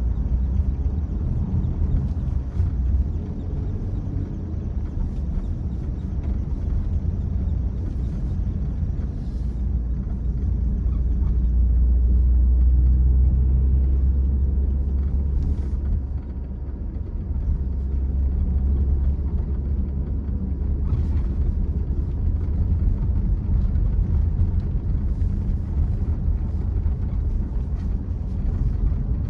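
A car driving along, giving a steady low rumble of engine and road noise that swells for a few seconds near the middle, then eases.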